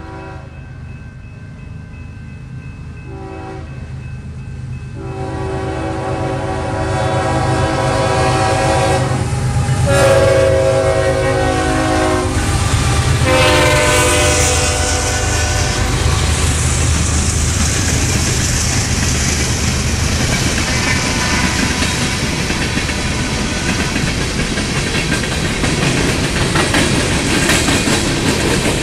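BNSF diesel locomotives on an empty grain train sound their horn in a series of long blasts at the grade crossing over a steadily rising engine rumble. After the last blast, a little past halfway, the train passes close by and the empty cars roll on with a steady clatter of wheels over the rail joints.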